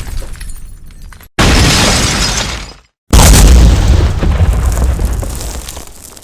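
Explosion sound effects, one after another: the tail of one blast dying away, then a sharp explosion about a second in that cuts off suddenly. A bigger explosion with a deep rumble follows about three seconds in and fades slowly.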